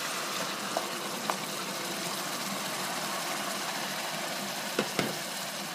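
White wine sizzling steadily in a hot pan of arborio rice and onion just after it is poured in, with a few light knocks of a spatula against the pan, two close together near the end.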